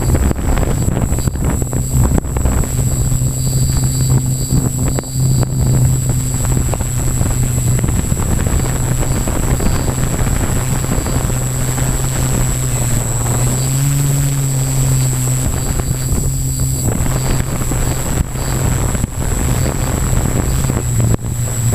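Multicopter's electric motors and propellers humming steadily, heard through the onboard camera's microphone with wind buffeting it and a thin high whine throughout. About fourteen seconds in the hum rises briefly in pitch as the motors speed up, then settles back.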